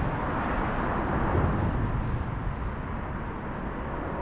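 Steady low rumbling background noise with no distinct events, the kind of outdoor rumble heard from traffic or wind on a microphone.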